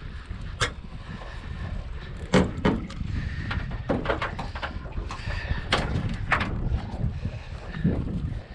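Wind rumbling on the microphone, with several sharp clicks and knocks scattered through it.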